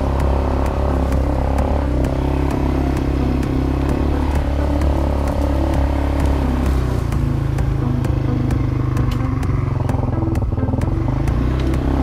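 Quad bike (ATV) engine running steadily under way over a rough track, with scattered clicks and rattles.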